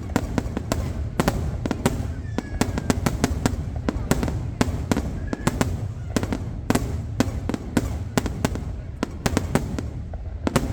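Aerial fireworks bursting in rapid, irregular succession: sharp bangs several times a second over a continuous low rumble.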